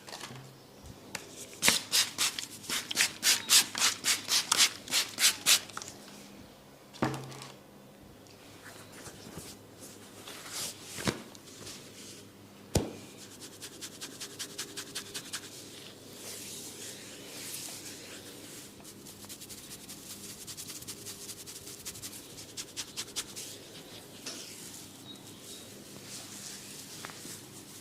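Hands massaging a head and scalp: a quick rhythmic run of about four sharp strokes a second, a few single sharp clicks, then steady rubbing.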